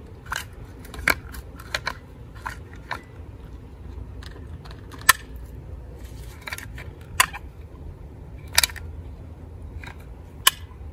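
Caulking gun being worked by hand to push acrylic concrete repair compound out of its tube: irregular sharp clicks and short crackly creaks from the trigger, ratchet and plunger, about a dozen in all.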